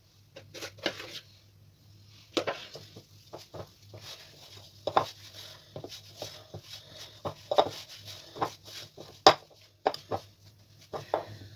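A hand kneading soft, sticky dough in a glass mixing bowl: irregular squelching slaps and knocks against the glass, some much louder than others, over a faint steady low hum.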